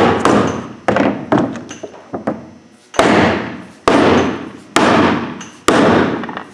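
Dead blow hammer striking a planter closing wheel assembly, about once a second, to drive the Yetter Twister insert and wheel halves together, with a few lighter knocks between the main blows. Each blow rings on briefly as it dies away.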